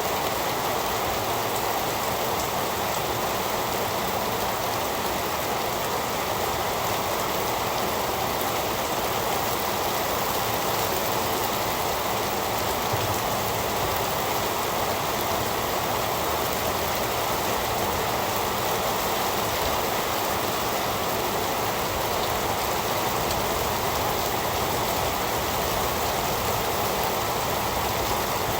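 Heavy rain falling in a steady, unbroken hiss, with no thunder.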